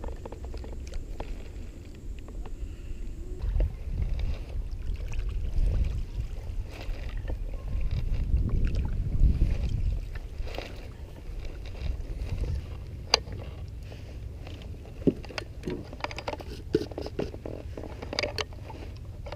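Canoe being paddled: paddle strokes in the water with a low rumble, loudest around the middle. In the last few seconds come a few sharp clicks and knocks from gear being handled in the canoe.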